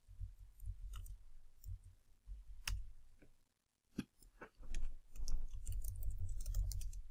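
Computer keyboard typing: scattered key clicks, then a quicker run of keystrokes in the second half.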